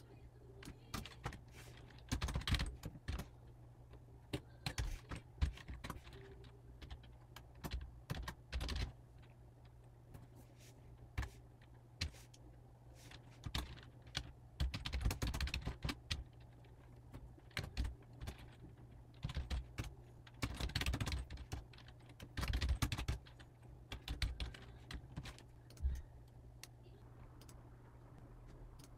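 Typing on a computer keyboard: irregular bursts of key clicks with short pauses between them.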